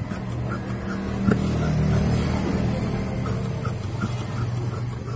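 Scissors cutting through cotton pillowcase fabric, with a few soft snips, over a steady low motor-like hum.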